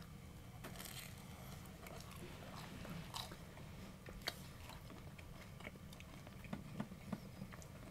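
Two people biting into slices of pizza and chewing them, heard as faint, scattered mouth clicks.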